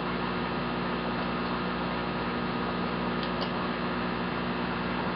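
Steady low electrical hum with background hiss, unchanging throughout, with a faint click about three seconds in.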